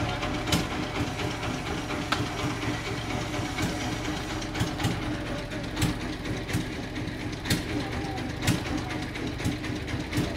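Large industrial bandsaw sawmill machinery running with a steady drone, with irregular clacks and knocks from the mill's moving parts and the timber.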